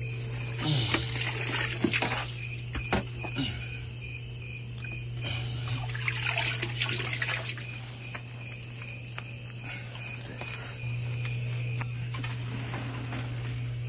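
Crickets chirping steadily in an evenly pulsed trill. Rustling and a few knocks come from the potted orchids being handled, in the first couple of seconds and again around six to seven seconds in.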